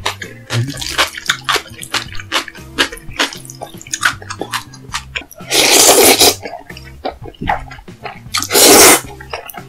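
Close-miked eating of jjajangmyeon with pickled yellow radish: a run of crunchy chewing clicks, and two loud slurps of noodles, one a little past the middle and one near the end, over background music.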